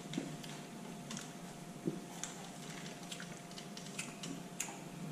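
Close-miked chewing and mouth sounds while eating: small wet clicks and smacks at irregular intervals, over a steady low electrical hum.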